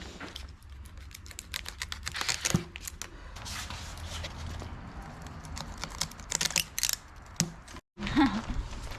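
A rapid, irregular run of clicks and taps over a low steady rumble, broken by a brief dropout near the end.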